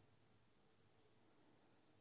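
Near silence: a faint steady low hum and hiss.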